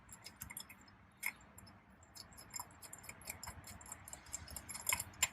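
Faint, irregular small metal clicks and light rattling from steering-wheel mounting bolts and tools being handled, with a couple of sharper clicks about a second in and near the end.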